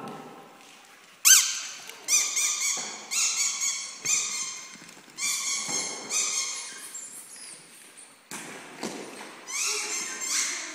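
Dogs at play giving a run of high-pitched yelping barks, about eight of them, each up to a second long, echoing off hard walls.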